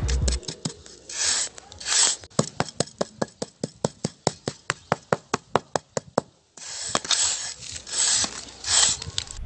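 Small hand trowel working a wet concrete surface: two scraping strokes, then a run of quick light taps, about five a second for some four seconds, then three more scraping strokes.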